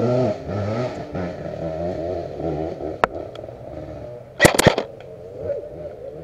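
Motocross motorcycle engines running and revving, their pitch wavering up and down throughout. About three seconds in comes a single sharp click, and about four and a half seconds in a quick cluster of sharp cracks, the loudest sound.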